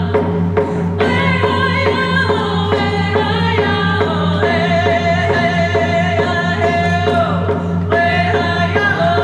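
Women's voices singing a Native American hand-drum song together over a steady beat on rawhide frame drums, about three strokes a second. The voices come back in strongly about a second in.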